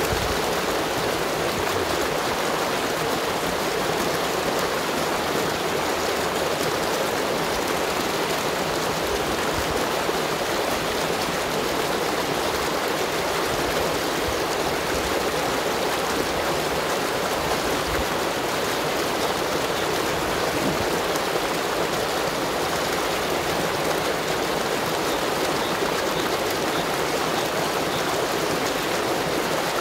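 Shallow stream water rushing and splashing as it pours white and foaming down a sloping rock slab, a steady, even rush with no breaks.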